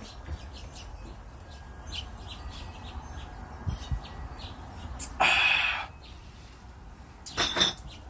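Small birds chirping faintly in the background. About five seconds in comes a loud rush of noise lasting under a second, and two shorter bursts follow near the end.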